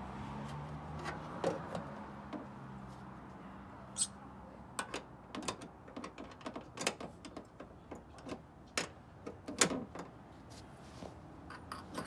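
Irregular sharp metallic clicks and knocks as a short steel paintless-dent-repair hook tool is fed through an access hole and worked against the inside of a Mini Cooper's quarter panel.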